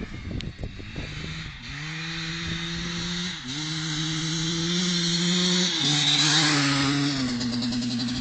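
Two-stroke Husqvarna 250 motocross bike engine running under throttle as the bike rides across the field. It holds a steady buzzing note that drops briefly about three times as the rider shifts or rolls off, and it grows louder toward the middle as it comes nearer.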